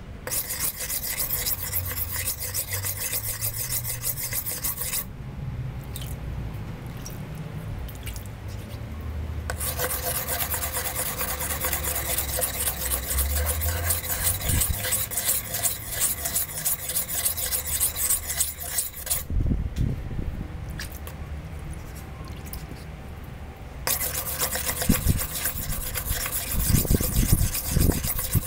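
Steel kitchen knife blade rubbed rapidly back and forth on a wet sharpening stone, a steady rasping grind. The grinding stops twice for a few seconds.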